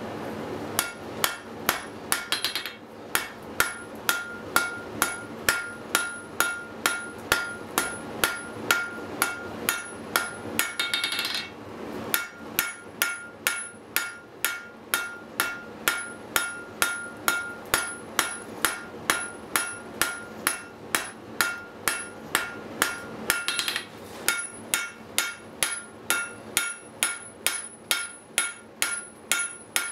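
Hand hammer striking hot steel on an anvil, forging a set down near the end of a bar. The blows come in a steady rhythm of about three a second, each with a ringing tone, broken by two short pauses.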